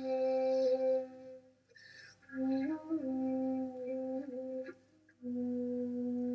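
Large bass bansuri (Indian bamboo flute) playing slow, long-held low notes, with short slides between pitches and audible breath noise. The playing breaks twice, briefly, before a long held note near the end.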